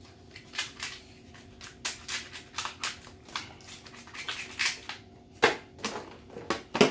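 Kitchen shears snipping and cracking through the shell of a cooked crab leg: an irregular run of sharp snips, several a second, with the loudest cracks near the end.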